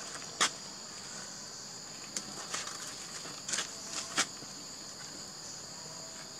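Steady high-pitched drone of insects, with several short sharp clicks or taps scattered through it, the loudest about half a second in.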